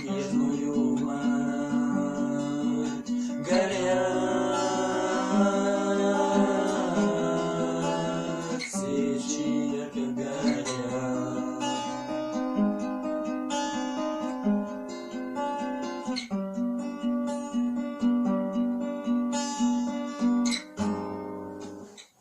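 Acoustic guitar playing the instrumental close of a slow, sad song, with steady plucked accompaniment and a wavering melody over it, ending about a second before the end.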